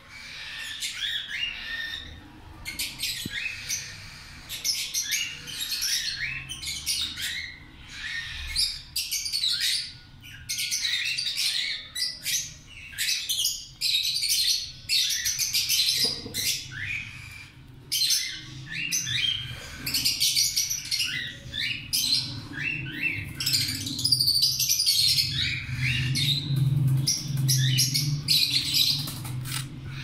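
A baby parrot giving rapid, repeated squawking begging calls as it is spoon-fed, the hungry chick's call for food during hand-feeding. A low hum runs underneath, growing stronger near the end.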